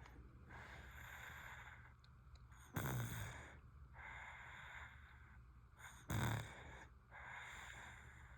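A sleeping baby snoring: two short snorts about three seconds apart, near three and six seconds in, with soft breathing sounds between them.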